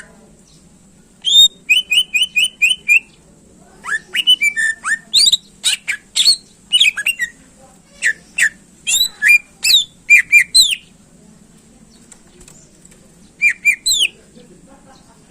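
Green leafbird (cucak ijo) singing loudly. It opens with a fast run of about six repeated notes, goes on with a varied string of sharp whistled notes and sweeping calls, pauses, and gives a short burst near the end.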